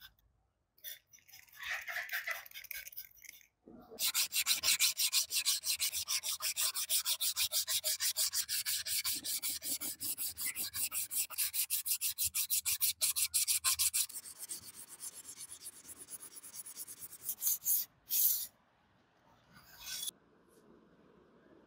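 A hand-held abrasive block rubbed quickly back and forth over a flat steel hatchet blade, about four strokes a second, as the steel is abraded. The strokes then turn softer and slower, with a couple of brief louder scrapes near the end.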